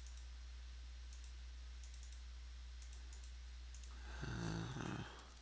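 Scattered sharp computer mouse clicks, about ten over four seconds, over a low steady electrical hum. Near the end a person briefly hums a wordless 'mm'.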